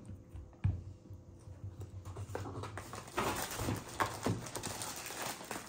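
Small plastic round ice-ball moulds being handled and taken out of their packet: a couple of knocks, then a run of crinkling and clicking from about two seconds in.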